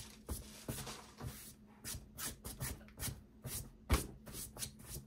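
Hands handling and shuffling plastic packaging on a desk: a string of short, irregular rustles and taps, with one sharper knock about four seconds in.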